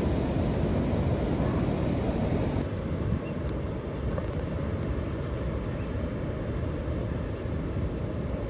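Steady rumbling wind and surf noise on an open beach, with wind buffeting the microphone; the sound thins abruptly in the upper range about two and a half seconds in.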